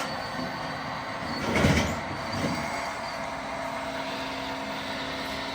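Radio-controlled model construction machines running: a steady hum of small electric motors and gearboxes, with a brief louder rumble about a second and a half in.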